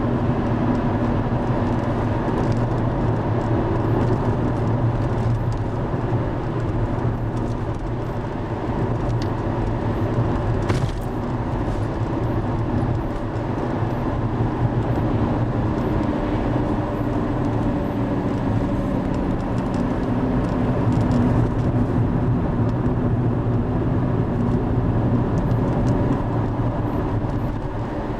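A river in heavy flood rushing past: a steady, deep rush of water.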